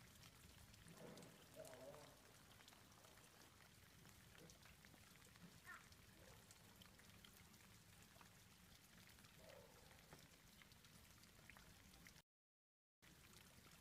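Near silence: faint outdoor background with a few scattered soft ticks. The audio drops out completely for a moment near the end.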